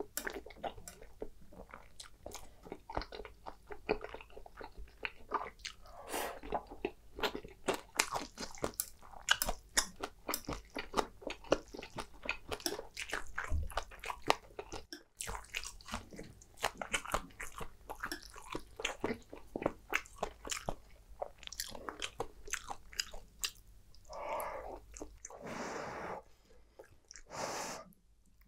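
Close-miked chewing and wet mouth sounds of someone eating creamy shrimp spaghetti: many small irregular clicks and smacks. Near the end come a few longer slurps as mouthfuls of noodles are sucked in.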